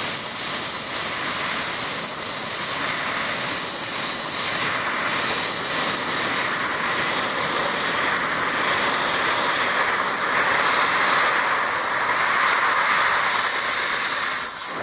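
500 W CNC fiber laser cutting 2 mm galvanized steel sheet: a loud, steady hiss of the assist-gas jet at the cutting head, with a thin, steady high whine above it.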